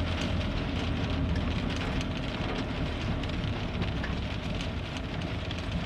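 Car moving slowly, heard from inside the cabin: a steady low engine and road hum under an even hiss of rain hitting the windshield and roof, with faint scattered ticks of drops.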